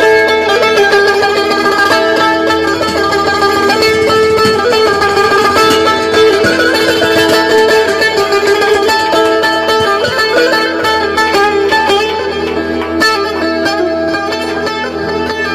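Electric Azerbaijani saz, its pickups amplified through loudspeakers, playing a fast, densely picked melody. It gets a little quieter after about twelve seconds.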